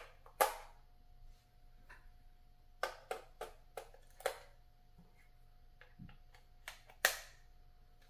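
Sharp plastic clicks and knocks as the RC bulldozer's plastic remote-control transmitter is handled and its battery cover fitted: about a dozen separate clicks, the loudest about half a second in and about seven seconds in.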